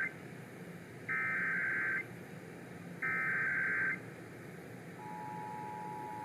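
Emergency Alert System SAME header, the screechy digital data bursts that encode the alert, sent three times about a second apart, followed about 5 s in by the steady two-tone EAS attention signal starting. Together they open a Required Monthly Test. The signal comes off AM radio, with a steady hiss and hum under it.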